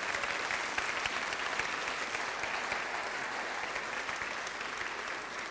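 Audience applause: a large seated crowd clapping steadily, easing off slightly near the end.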